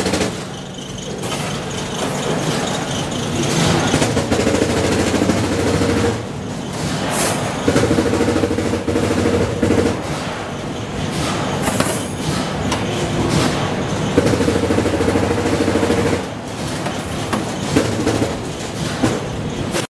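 Wire-rack factory machinery running, with a humming drone that comes and goes every few seconds and many metallic clicks.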